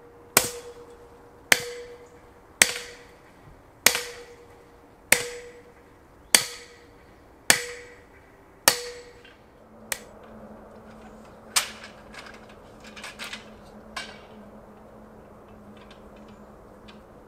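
Sledgehammer driving a sawn wooden fence post into the ground with eight heavy blows, about one every 1.2 seconds, each ringing briefly. After that come a couple of lighter knocks and a faint steady hum.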